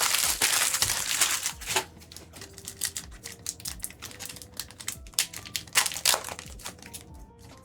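Foil booster pack wrapper crinkling and tearing as a trading card pack is ripped open, followed by a run of light clicks and rustles of the cards being handled.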